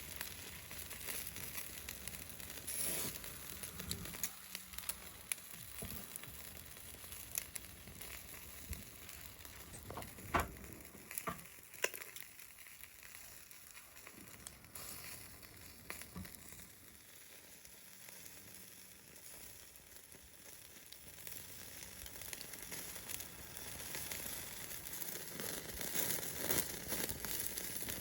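Fatty chicken wings sizzling on a grill over a campfire, with scattered pops and crackles from the dripping fat. The sizzle grows louder in the last few seconds.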